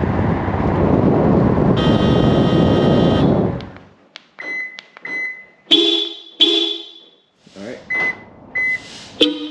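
Road noise inside a moving 2018 Subaru WRX with a red Hella Supertone horn blast of about a second and a half, heard from the cabin. Then the car's alarm is set off with the key fob: two short high beeps and two blasts of the stock horn. Near the end come two more beeps and a short blast of the Hella Supertone horns.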